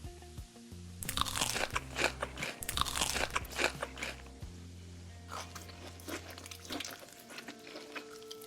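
Crunchy food being bitten and chewed close to the microphone, densest in the first half and thinning out after about four seconds, over soft background music.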